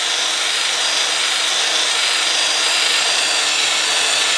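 Electric drill spinning a spring-tensioned stone cylinder hone inside a wet cast-iron cylinder bore of a Jeep 4.0 engine block: a steady grinding rasp of the stones on the wall with a faint high whine from the drill. The stones are cutting crosshatch into the bore so the new piston rings will seat.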